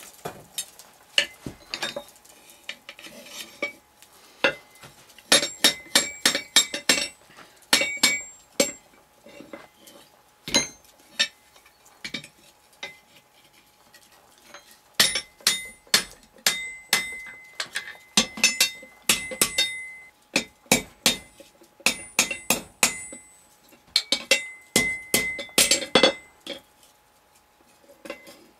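Hand hammer striking hot iron on the anvil in runs of quick blows with short pauses between, each blow leaving a clear metallic ring, as the end of a hinge strap is bent and rolled into a knuckle around a round-stock pin.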